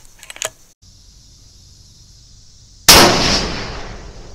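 A single shot from a .308 Winchester bolt-action rifle (CVA Cascade) firing a 150-grain Winchester Super X load: a sharp, very loud crack about three seconds in that tails off over about a second and a half. A few light clicks of the bolt come near the start.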